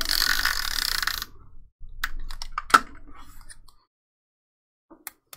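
Tombow Mono adhesive tape runner drawn along a paper strip, a dry hiss lasting about a second, followed by paper rustles and light clicks with one sharp click, and two faint ticks near the end.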